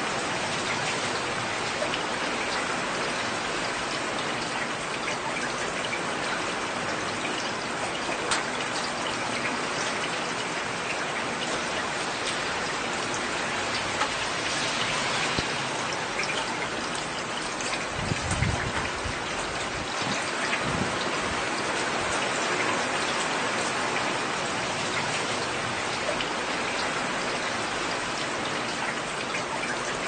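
Heavy rain falling steadily, a dense even hiss of drops, with a short low rumble about two-thirds of the way through.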